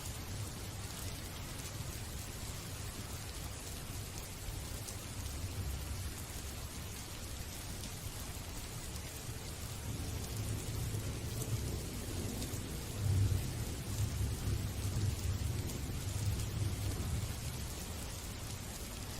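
Steady rain falling, with a low rumble of thunder swelling up about halfway through and dying away near the end.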